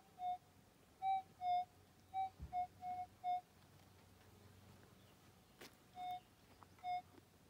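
Gold metal detector's electronic target beeps: a quick run of short tones in two slightly different pitches, a pause of a couple of seconds, then two more beeps near the end, as the coil passes over a buried test nugget. A single sharp click falls in the pause.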